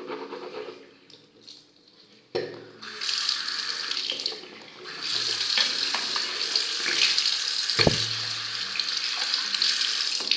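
Water running from a tap into a sink, starting about two seconds in, easing off briefly and then running on steadily, with a single knock about eight seconds in.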